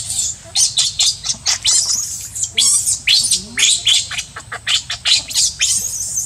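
Baby macaque screaming in distress as its mother pulls it about and drops it: a rapid run of shrill, high-pitched cries, about three a second, that stops abruptly near the end.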